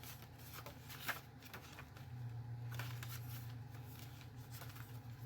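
Paper pages of a handmade junk journal being turned and handled: soft, intermittent rustles and crackles, one sharper crackle about a second in, over a faint steady low hum.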